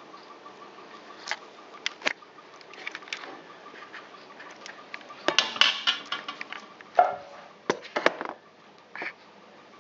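Kitchen clatter of a pan and utensils: scattered clicks and knocks, with a denser burst of clinks about five to six seconds in and a few single knocks after it.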